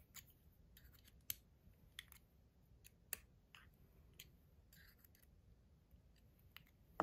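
Faint, irregular small metal clicks and ticks as a little metal adjustment tool is worked into a metal fidget toy to tighten its mechanism, ending on a sharper click.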